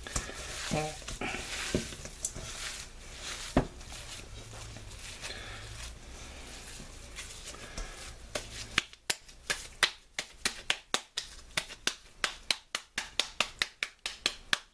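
Gloved hands squishing and mixing seasoned raw ground beef in a mixing bowl. About halfway through this gives way to a quick run of sharp slaps, a few a second, as the meat is patted into a long burger patty.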